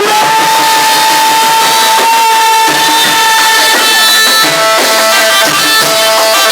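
Live band music with drums: one long held melody note for about the first four seconds, then shorter notes.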